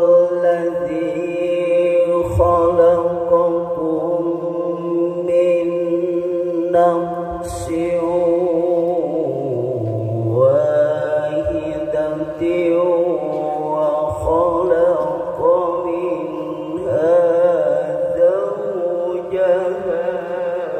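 A man's solo voice reciting the Quran in the melodic tilawah style: long held notes with wavering, ornamented turns.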